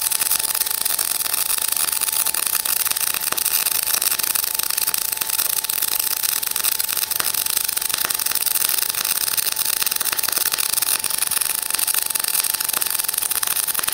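MIG welding arc in globular transfer on 100% CO2 at 33 volts and 450 inches a minute wire feed: a steady crackle with irregular sharp pops as large molten droplets fall into the puddle, an aggressive, high-spatter transfer.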